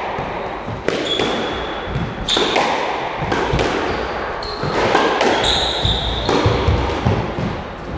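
Squash rally: the ball cracking off rackets and walls about once a second, echoing round the enclosed court, with short high squeaks from court shoes on the wooden floor between shots.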